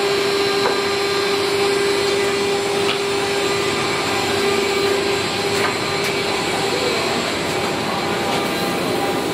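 Woodworking machinery running steadily: a constant motor hum over a rushing whir, with a few faint ticks.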